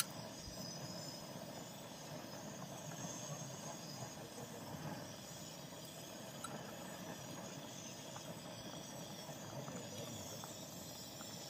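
Pot of meat-and-tomato broth simmering: a faint, steady bubbling hiss.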